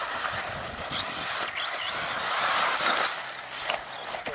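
Electric RC buggy's motor whining, rising and falling in pitch as it speeds up and slows, over the hiss of its tyres on the dirt track; loudest a little past halfway through.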